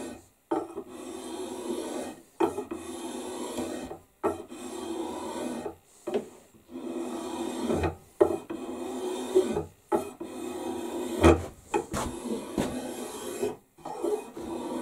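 Spokeshave shaving down a wooden axe handle in repeated rasping strokes, each about one to two seconds long, with brief pauses between them.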